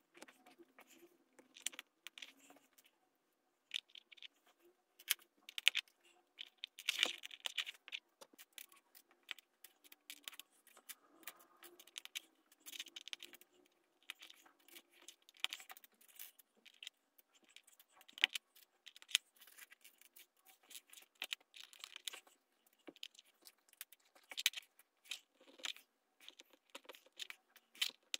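Plastic Lego bricks clicking and clattering as they are handled and pressed together, an irregular run of small sharp clicks, some in quick clusters.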